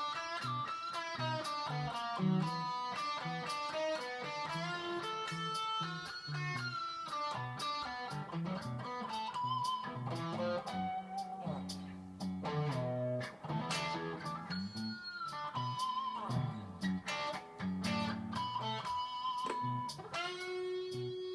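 Squier 70s Thinline Telecaster with humbucking pickups, played through a Fender Supersonic 60 amp: quick lines of picked single notes and riffs, with string bends partway through, ending on a held note that rings on.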